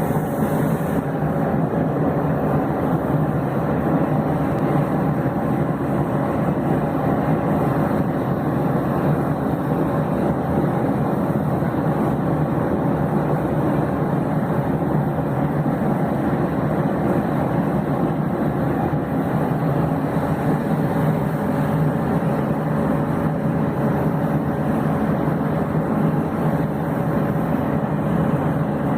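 Steady mechanical running noise, a continuous hum and rumble with faint steady tones, unchanging throughout.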